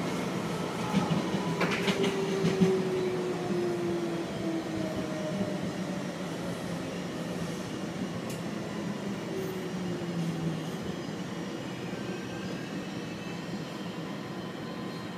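Miami Metrorail train running on elevated track, heard from inside the car: a steady rumble of wheels and running gear, with a few sharp clicks about two seconds in and a whine that falls in pitch over the first few seconds.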